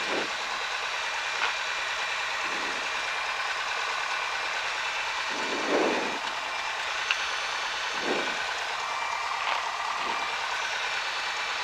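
Cessna 172's piston engine running at low taxi power, heard inside the cockpit as a steady hum and hiss. A few soft low swells come every two or three seconds, the strongest about six seconds in.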